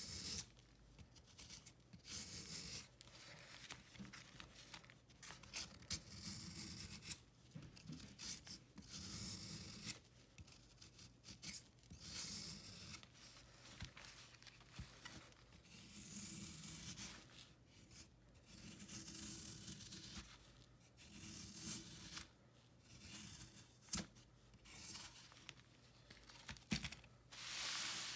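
Repeated scraping strokes of a hand tool across a hard, chalky block of dried baking soda, chalk and calcium carbonate, shaving off powdery flakes, a stroke every second or two with short pauses between them. Now and then a crumb cracks with a sharp click.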